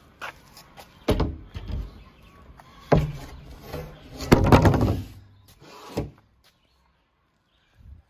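A large wooden board handled and laid across metal sawhorses: a few separate knocks and thumps, with the loudest clattering cluster about four seconds in.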